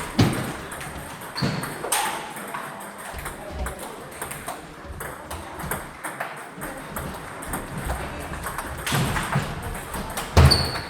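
Table tennis balls clicking off rackets and the table in play, a few scattered sharp hits with a louder pair near the end.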